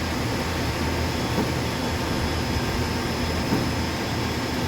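Steady running hum of a 2005 Okuma LU-400 CNC turning center powered up with its hydraulics and fans on, with two faint short knocks about a second and a half and three and a half seconds in.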